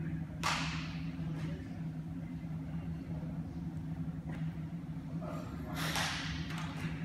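Athletic shoes scuffing on artificial turf as the athlete steps over low hurdles: two brief swishes, about half a second in and about six seconds in, over a steady low hum.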